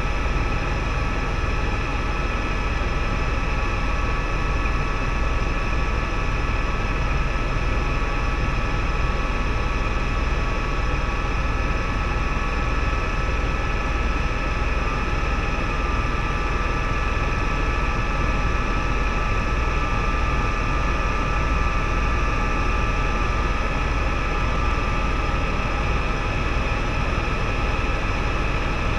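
Helicopter in flight heard from inside the cabin: the engine and rotors running steadily, a deep constant drone with a steady high whine over it.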